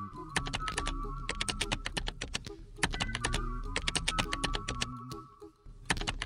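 Computer keyboard typing in quick runs of key clicks with short pauses, over music: a whistled tune with an a cappella sung bass line.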